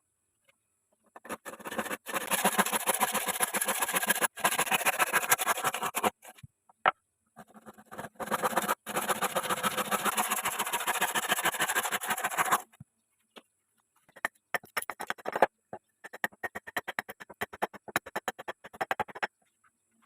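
A chisel cutting ulin wood spinning on a homemade wood lathe, a harsh scraping with fast even ticking, in two long passes of about five seconds each with a pause between, then a choppier run of shorter cuts near the end.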